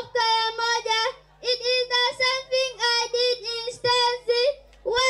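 A young girl's voice singing in short phrases on a high, mostly level pitch, with brief pauses between phrases.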